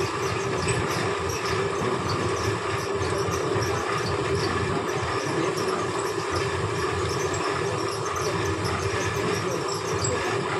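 Fabric checking machine running steadily, its rollers feeding cloth past a wheel-driven metre counter: a continuous mechanical hum with a constant tone and an even level.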